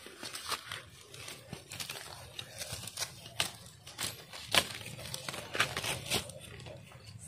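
Dry leaves and brush crackling and rustling, with irregular sharp snaps scattered through.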